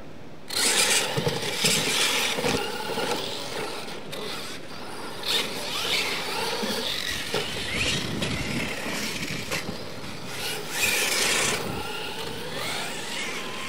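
Losi LMT electric RC monster trucks racing on dirt, their brushless motors whining up and down in pitch as they accelerate and let off, with tires scrabbling on the dirt. They launch suddenly about half a second in, and there are louder surges around five seconds in and near the end.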